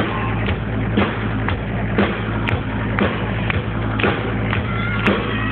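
Live indie rock band playing, the drum kit keeping a steady beat of about two hits a second over a heavy bass.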